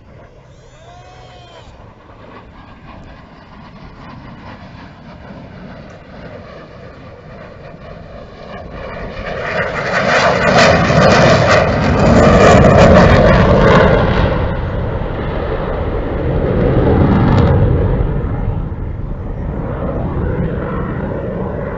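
Jet aircraft making a pass: its engine noise builds from a faint rumble to a loud roar with crackle about ten seconds in, swells again a few seconds later, then fades.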